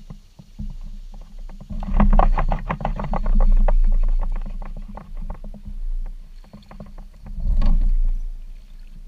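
Kayak paddle strokes: water splashing and dripping off the paddle blades as the kayak moves through the water, with a low rumble underneath. A quick run of sharp splashy ticks comes about two seconds in, and another loud splash about three-quarters of the way through.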